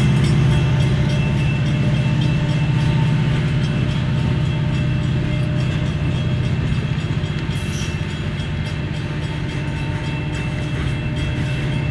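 Freight train boxcars rolling past on the rails: a steady low rumble of wheels and cars with a fast run of faint clicks, slowly getting quieter.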